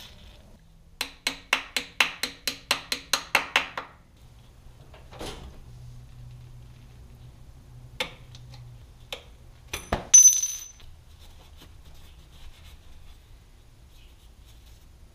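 Metal hand tools and parts being handled while a motorcycle foot peg is fitted. About a second in comes a quick run of about a dozen sharp metallic clicks, about four a second, then a few single knocks. Just after ten seconds there is a loud, ringing metal clink.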